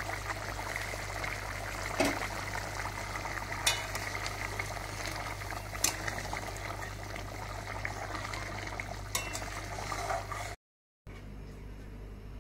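Thick curry simmering and bubbling in a metal kadai while a spatula stirs it, with a few sharp clinks of the spatula against the pan as the spice powder is mixed in. Near the end the sound cuts out abruptly, then a quieter steady hum follows.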